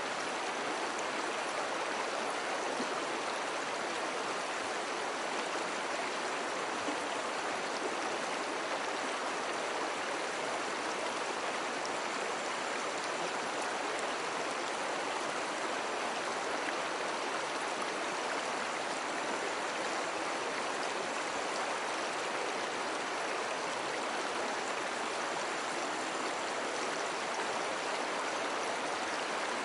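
Flowing water of a stream, a steady, unbroken rush.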